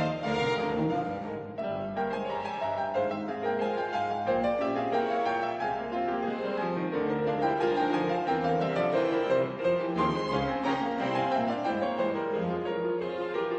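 Background music in a classical style, with piano and strings.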